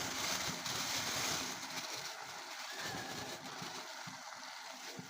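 Cooked githeri (maize and beans) tipped into a pot of cabbage and mixed in: a wet, rushing hiss, loudest in the first second and a half, with light knocks of the pot.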